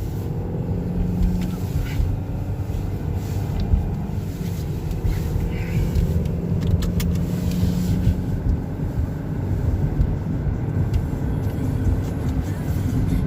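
A car running at a steady pace: a continuous low engine hum with road noise, plus a few faint clicks.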